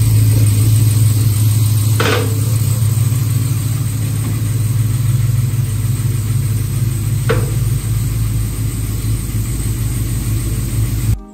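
Chevrolet L86 6.2-litre V8 with a BTR 220 cam idling steadily through long-tube headers and a true-dual 3-inch exhaust, with two sharp clicks about two and seven seconds in. The sound cuts off abruptly near the end.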